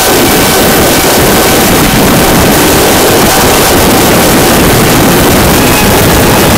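VAS Banshee foam FPV flying wing in fast flight, heard from its onboard camera: a loud, steady rush of wind on the microphone mixed with the buzz of its electric motor and propeller, with a faint steady whine.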